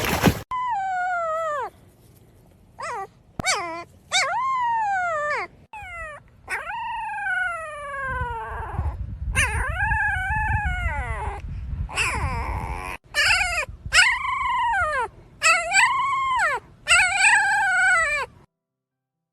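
A dog howling and whining in a run of drawn-out calls, each up to about a second and a half long, rising and falling in pitch.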